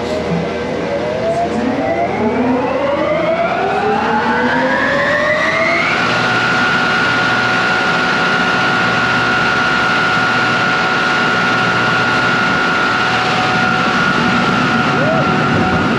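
Roller coaster's electric drive motor in the station whining as it spins up, its pitch rising for about six seconds and then running at a steady pitch.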